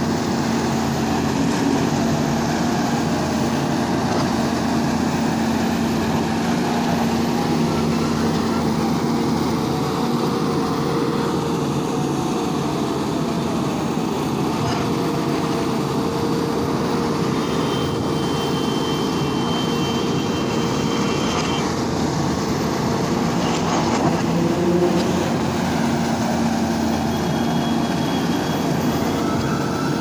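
Volvo EC210B crawler excavator working, its diesel engine running steadily with a constant hum while the boom and bucket dig.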